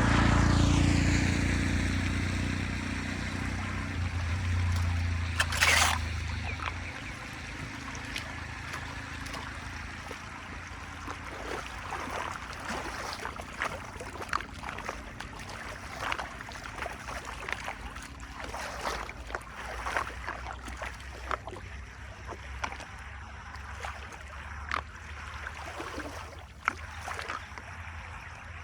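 Floodwater splashing and gurgling, with a loud low rumble over the first few seconds that fades away.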